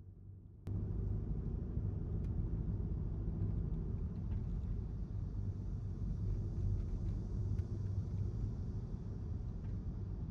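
Steady low rumble of a car driving, road and engine noise, which cuts in abruptly about a second in after a quieter stretch.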